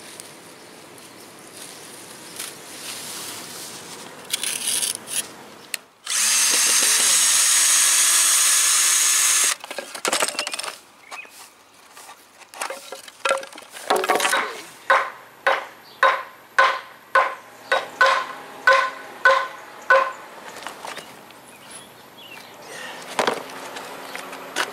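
A power drill runs for about three and a half seconds. Then a hammer strikes about a dozen times, roughly two blows a second, each with a ringing note, as the wooden curb forms are knocked loose.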